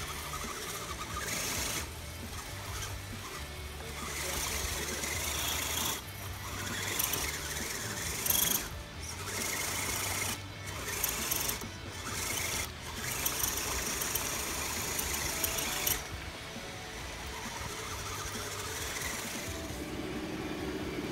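Electric motor and gear drivetrain of an RC scale crawler truck whining as it drives through mud, cutting out briefly several times as the throttle is let off and picking up again.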